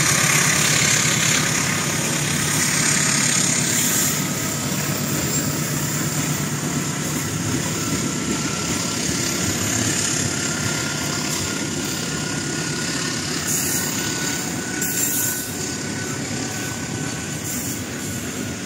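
Freight train of KAI Logistik box wagons rolling past close by: steady wheel-and-rail rumble with a faint thin high whine. The hauling diesel locomotives' engine note fades as they draw away in the first few seconds.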